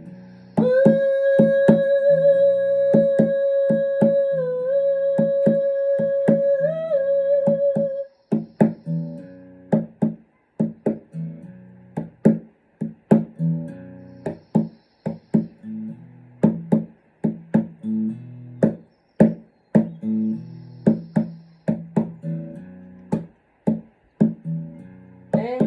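Guitar picked note by note in a steady repeating pattern. A long held note sounds over it for the first eight seconds or so, dipping and rising slightly in pitch before it stops.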